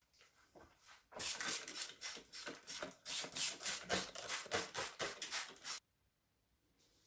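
Rapid back-and-forth scrubbing on a hard surface, about four strokes a second for some five seconds, stopping abruptly near the end.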